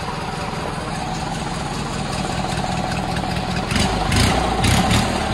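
Garden tractor's Briggs & Stratton opposed-twin engine idling through a tall welded exhaust stack with a flap, then revved briefly a couple of times near the end.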